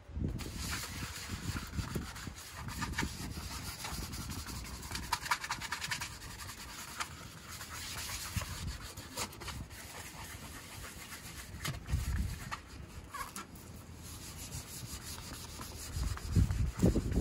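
Scrubber sponge rubbing over the hot tub shell in repeated scratchy strokes, scrubbing off waterline scum with spa filter cleaner. A few dull bumps come in, the loudest near the end.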